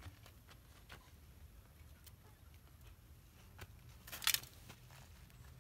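A hand scraping and rustling in dry soil and leaves, one brief rustle about four seconds in the loudest, amid a few faint scattered clicks.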